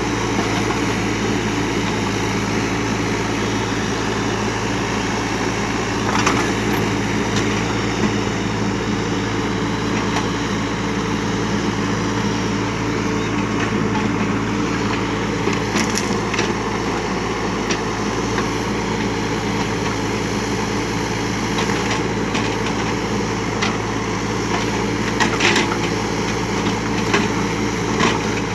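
A Kubota U35 mini excavator's engine runs steadily under load while branches and brush crack and splinter as the machine clears scrub. Sharp snaps stand out a few times, around a quarter and just over half way through and again near the end.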